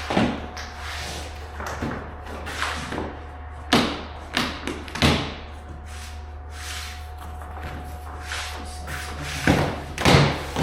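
Underlayment sheet rustling and scraping as it is slid and tucked under a baseboard on a concrete floor, with several sharp knocks and thuds, two of them close together near the end.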